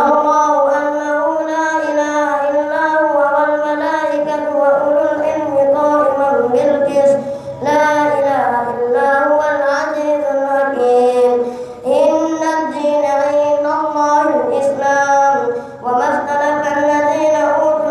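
A boy's voice reciting the Quran in a melodic chant, held in long drawn-out phrases with brief pauses for breath three times.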